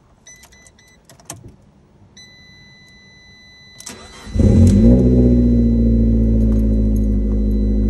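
A dash chime beeps a few times, then holds a steady high beep. About four seconds in, the Abarth 500's turbocharged four-cylinder is cranked and catches almost at once, flares briefly and settles into a steady idle on its first start with the ECU refitted.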